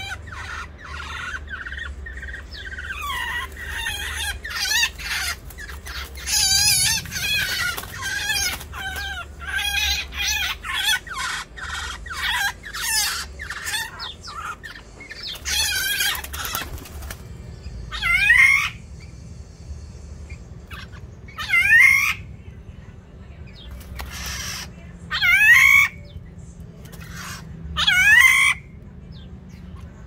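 Black-naped orioles fighting: a rapid jumble of harsh calls with wing flapping for the first half. From just past halfway, one drawn-out call falls in pitch and comes four times, about every three and a half seconds.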